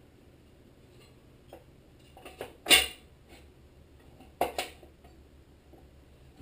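Sheet-metal engine covers being handled and set into place on a Tecumseh HM80 engine: a few light metal clanks, the loudest a little under three seconds in, then two quick clanks a little after four seconds.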